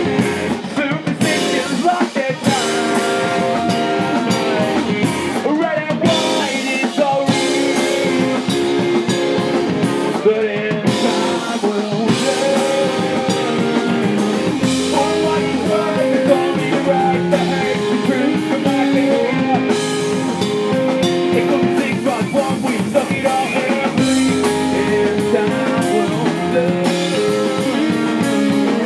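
Live rock band playing a song: guitar, drum kit and singing.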